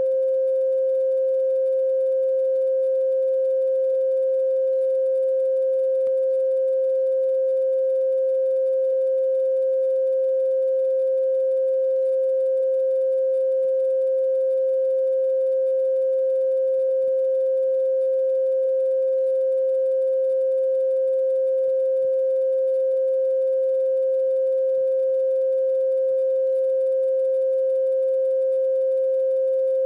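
A steady electronic pure tone, one mid-pitched note held at an unchanging pitch and level with faint higher overtones.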